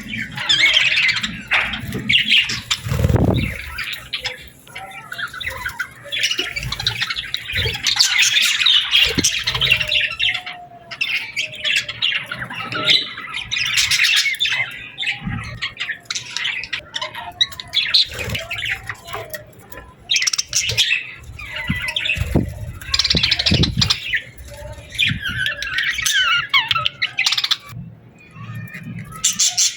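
Several birds chirping and squawking in dense bursts of chatter with short pauses between them, with a few low thumps.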